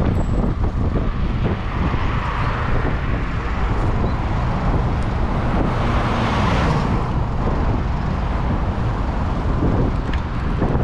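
Road traffic at a city intersection: cars, vans and small box trucks driving past, with one vehicle passing close and loudest about six seconds in, its engine note falling as it goes by. Low wind rumble on the microphone underneath.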